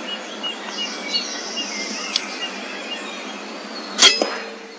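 Small songbird chirping in a quick series of short notes over outdoor background noise, then about four seconds in a single sharp crack of an air rifle being fired at a grey squirrel, the loudest sound, with a brief ring after it.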